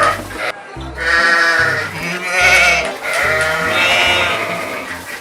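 Sheep bleating: about three long, quavering bleats in a row.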